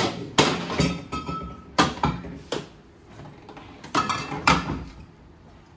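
Glass wine bottles knocking and clinking against refrigerator shelves and drawers as they are loaded in to chill: a string of sharp knocks spread over several seconds.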